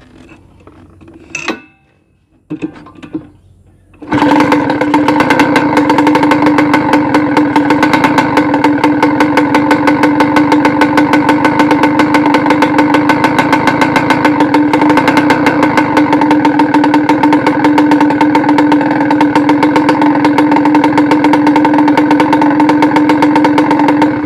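Kawasaki Ninja RR 150's single-cylinder two-stroke engine, running with no intake velocity stack and no air filter, comes in abruptly about four seconds in and runs loud and steady at one pitch until it cuts off at the very end. It sounds much like a brong (open) exhaust, with a tinny rattle like old tin cans clanging.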